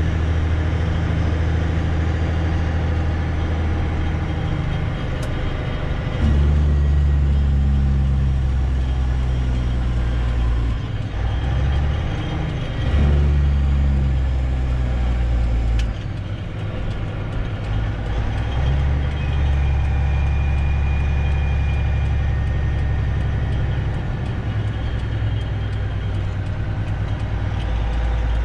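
Semi truck's diesel engine running as it is driven, a steady low drone whose pitch and loudness change in steps a few times.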